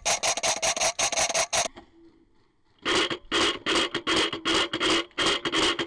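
Airsoft rifles firing strings of rapid shots, about five to six a second, each shot with a rasping mechanical ring: a short string of about ten shots, a pause of about a second, then a longer string of about fifteen lower-pitched shots.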